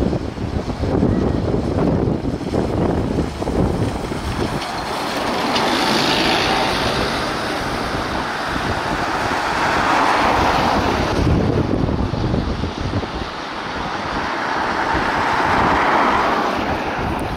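Road traffic passing, vehicles swelling and fading away about three times, with wind buffeting the microphone in the first few seconds.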